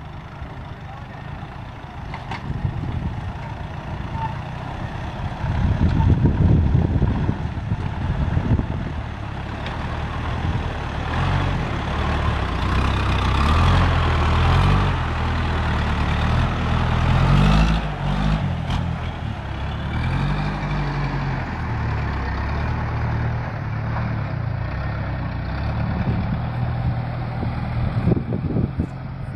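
Heavy farm vehicle's engine working hard under a load of rice, its pitch rising and falling as it revs. There is a loud low surge about six seconds in.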